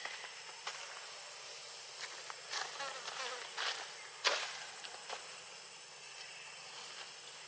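Forest insects making a steady, high-pitched drone, broken by a few short clicks and rustles, the sharpest about four seconds in.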